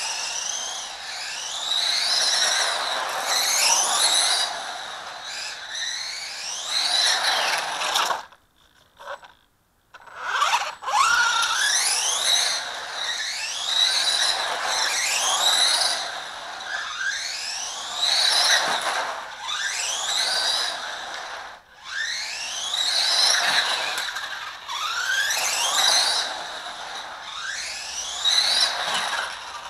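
Small radio-controlled buggy driving in bursts on tarmac: its motor whines up in pitch again and again as it accelerates, over a rushing of tyres. It goes almost silent for about two seconds a third of the way through.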